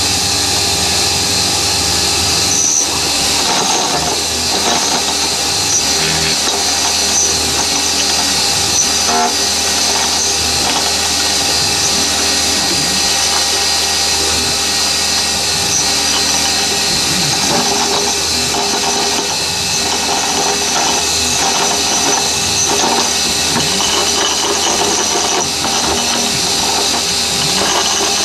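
Milling machine running steadily while the cutter cuts a profile through the workpiece: a continuous whine made of several fixed tones, with small irregular cutting noises on top.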